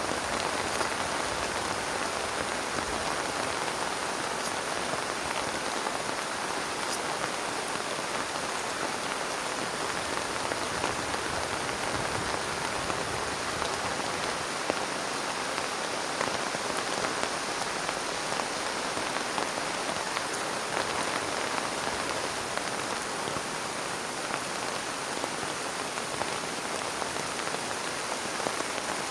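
Heavy rain falling steadily, with a few sharper single drop hits standing out now and then.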